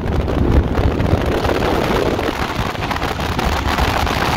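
Wind rushing over the microphone of a motorcycle riding at speed, with a steady low rumble beneath.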